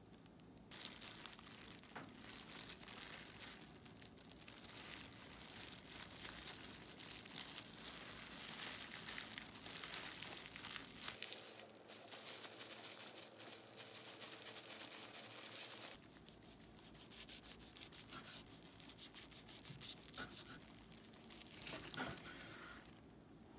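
Thin disposable plastic gloves crinkling and rustling as hands handle the fillings and roll up a gimbap on a wooden board, with small taps and clicks. Near the end a knife cuts through the roll.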